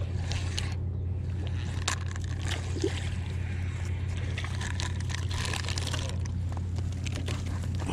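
Water sloshing and trickling over a steady low hum, with scattered small clicks and knocks.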